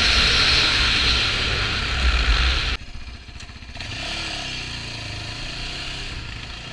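Yamaha Raptor 700R quad's single-cylinder engine pulling under throttle, with wind rushing over the helmet-camera microphone. About three seconds in the sound drops off suddenly, leaving the engine running low and steady at slow speed.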